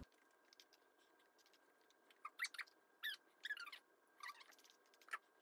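Instant noodles slurped from a cup: about five short squeaky slurps, each falling in pitch, between about two and five seconds in, against near silence.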